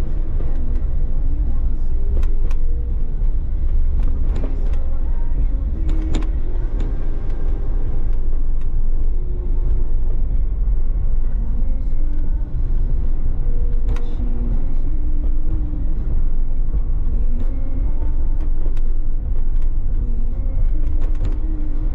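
A car driving along a narrow lane: a steady low rumble of engine, tyres and wind, with occasional short knocks and rattles.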